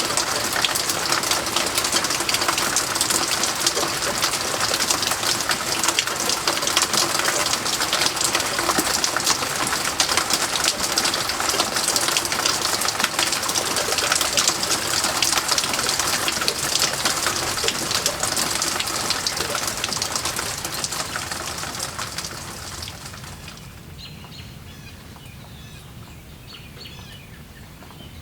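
Steady heavy rain that eases off sharply about three-quarters of the way through, leaving lighter rainfall with faint bird chirps.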